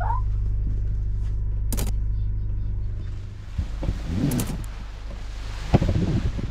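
A yacht's generator runs with a steady low hum. About three seconds in the sound changes to a softer hiss with a few short knocks and rustles.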